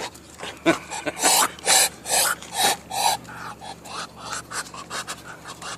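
A duck hissing at close range in a string of short, raspy breaths, louder in the first half and weaker towards the end; a duck that hisses instead of quacking.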